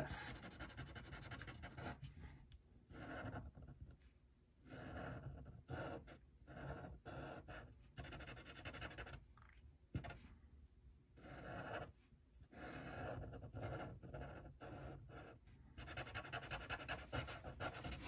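Sharpie fine-point marker drawing on paper: a run of short scratchy strokes with brief pauses between them, as lines are drawn and small areas are filled in.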